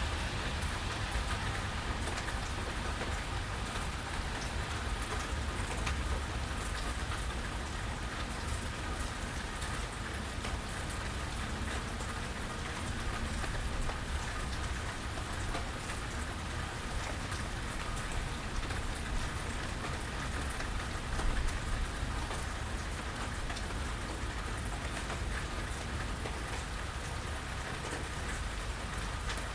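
Steady rain falling in a rainstorm, with a steady low rumble underneath.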